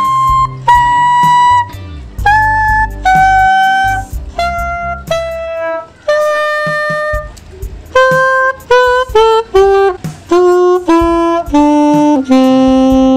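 Yamaha Venova, a plastic single-reed wind instrument, playing a C major scale downward over two octaves: about fifteen separate notes stepping down, the lower octave a little quicker, ending on a longer held low note.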